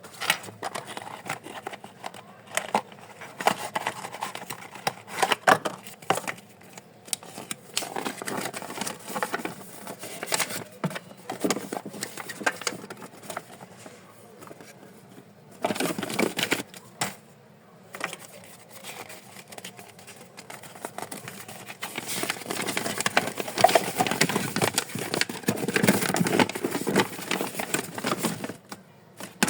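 Packaging being handled and opened: crinkling wrapping and rustling, tapping cardboard, with many irregular clicks and scrapes, busier and louder in the last third.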